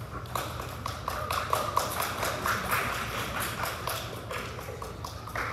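Audience clapping: a thin, scattered round of applause in which individual hand claps stand out, several a second.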